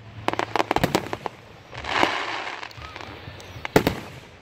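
Aerial fireworks: a quick run of sharp crackling pops in the first second or so, then a single loud bang of a shell bursting near the end.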